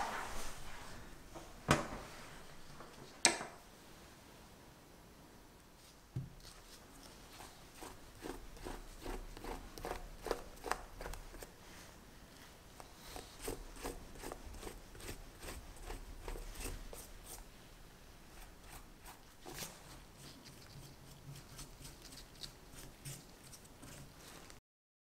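Pastry brush dabbing and stroking glaze over a crisp baked lattice pie crust: a long run of soft, irregular crackly ticks. A few sharper knocks come in the first few seconds.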